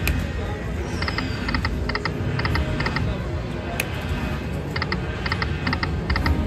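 Lightning Link slot machine playing its electronic reel sounds: clusters of short, bright ticks, two or three clusters a second, with a pause near the middle, over a steady low casino-floor rumble.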